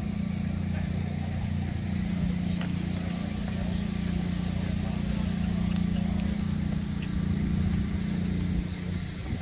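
Heavy diesel truck engine idling steadily, an even low hum.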